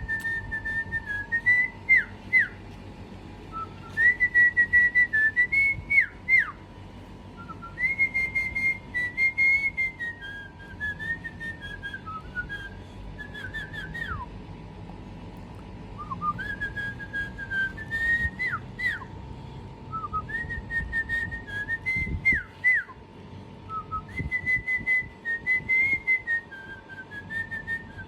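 Cockatiel whistling a repeated melodic phrase: runs of clear notes at a similar pitch that end in quick downward slurs, a new phrase starting about every four seconds. A faint steady hum runs underneath.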